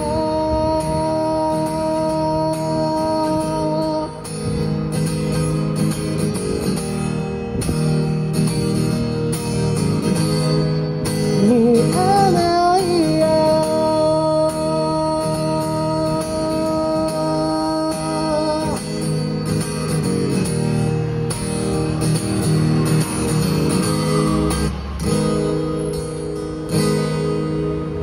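Acoustic guitar strummed under a man singing long held notes with no words, his voice wavering up and down in a short run about halfway through.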